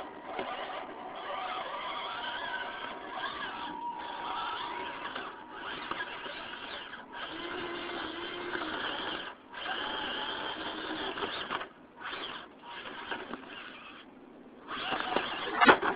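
Losi Night Crawler RC rock crawler's electric motor and gear drive whining in stop-and-go throttle bursts as it climbs over rocks, cutting out briefly between them. A few sharp knocks come near the end.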